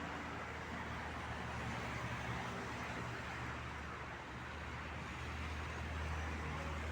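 A car running steadily: a low engine hum with an even wash of road noise.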